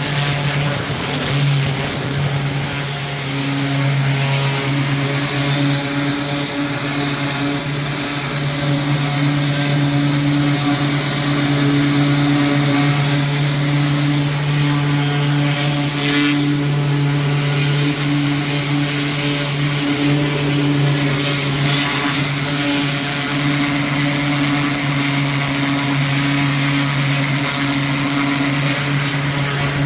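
A small petrol engine running steadily at a constant speed, with a hiss above it.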